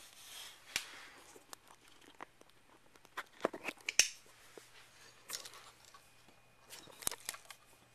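Camera handling noise: scattered knocks, clicks and rustles as the camera is picked up and moved, with a cluster of sharp knocks about three to four seconds in and another about seven seconds in.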